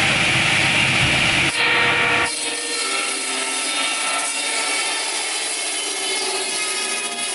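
Large table-mounted circular saw blade cutting through a log, a continuous loud grinding noise. A little over two seconds in, the deep part of the noise drops away, leaving a thinner sawing sound with a steady whine of several tones.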